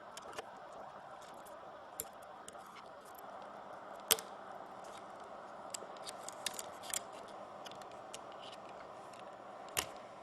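Scattered small clicks and taps of tools and plastic and metal parts being handled while a BlackBerry Torch 9800 is taken apart, over a faint steady hiss. Two sharper clicks stand out, about four seconds in and near the end.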